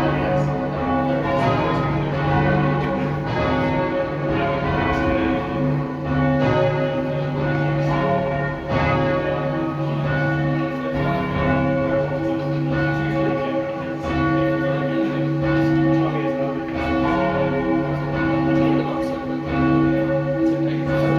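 The ring of twelve church bells at St Sepulchre-without-Newgate, tenor 28-2-16 cwt in C sharp, being change rung. It is a steady, unbroken stream of overlapping bell strokes, with the deep tenor and the lighter bells all sounding together.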